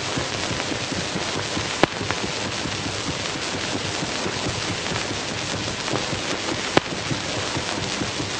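Steady, dense crackling noise made of many small clicks, with two sharper, louder clicks, one about two seconds in and one near seven seconds.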